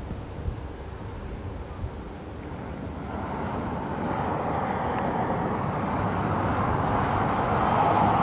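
Four Rolls-Royce AE 2100 turboprop engines of a Lockheed WC-130J Hercules running on the runway, a steady drone that grows louder from about three seconds in.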